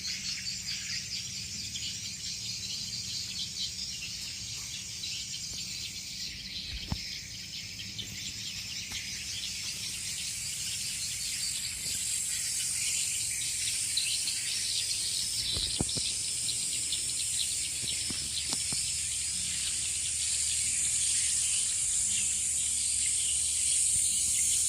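Insects chirring steadily in a high, continuous drone, growing louder partway through, with a few faint knocks.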